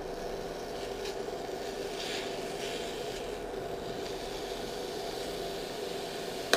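Peach slices beginning to sizzle softly in a dry nonstick frying pan as it heats, over the steady hum of a portable electric hob. A silicone spatula scrapes lightly in the pan about two seconds in.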